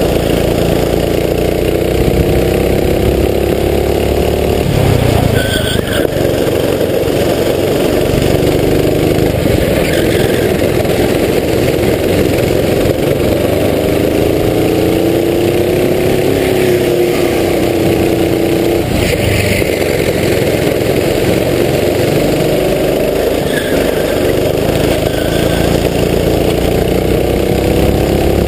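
Racing kart engine heard on board at race pace. Its note climbs steadily as the kart accelerates and drops sharply twice, about five seconds in and again near twenty seconds, as the revs fall off.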